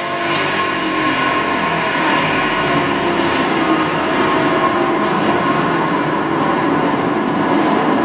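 Z purlin roll forming machine running steadily, its rollers forming the steel strip: a continuous mechanical rumble with a thin steady whine.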